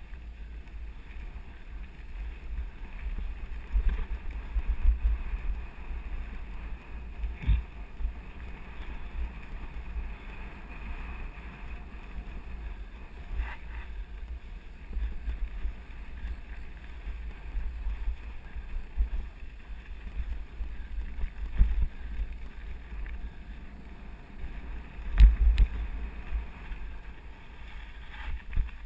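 Wind buffeting an action camera over the low rumble of a mountain bike rolling on a gravel forest road, with sharp knocks from bumps now and then, the loudest near the end.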